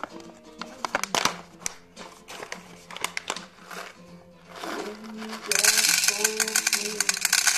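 Whole coffee beans poured into a clear glass jar, rattling and clattering steadily from about two-thirds of the way in, after a few scattered clicks of handling. Guitar music plays underneath.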